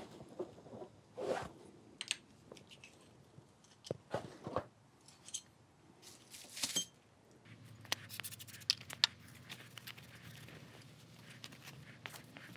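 Scattered handling noises as a new metal smoothing plane is unpacked on a bench: plastic and bubble wrap rustling and crinkling, with light clicks and knocks of the plane and its parts. A low steady hum comes in a little past halfway.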